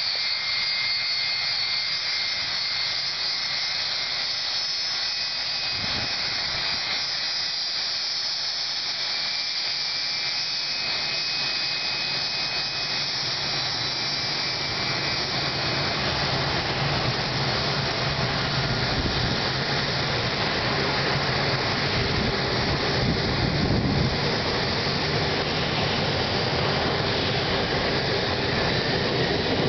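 Airbus A320's twin turbofan jet engines spooling up for takeoff: a distant high whine that gives way, from about halfway through, to a growing roar.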